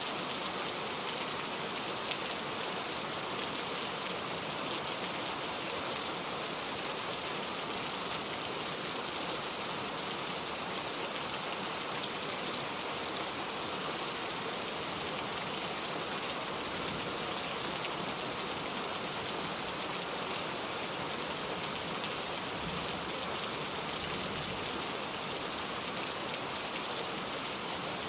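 Steady rain falling, an even hiss of many drops with no change.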